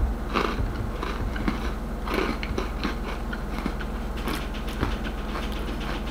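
Crunchy chewing of chalky freeze-dried ice cream sandwich, with irregular crisp crackles as the pieces are bitten and chewed.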